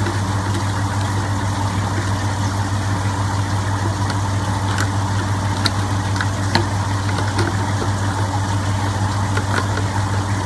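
Steady low hum of a small motor running, with a few faint light clicks around the middle.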